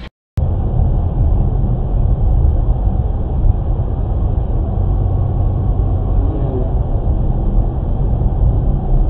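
Steady low rumble of a car on the move, engine and road noise, after a brief silent gap at the start; a faint voice is heard briefly about six and a half seconds in.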